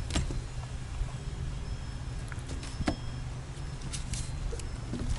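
Low steady rumble with a handful of sharp clicks and light knocks from fishing tackle being handled on the boat deck.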